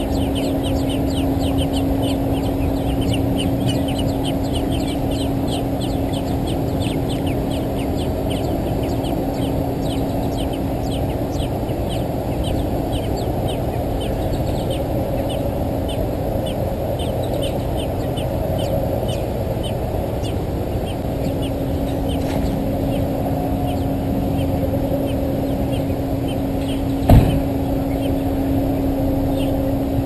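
American robin nestlings begging for food: rapid high-pitched cheeps, about four a second, thinning out and fading after the first half. A steady low hum and rushing noise run underneath, and a single sharp knock sounds near the end.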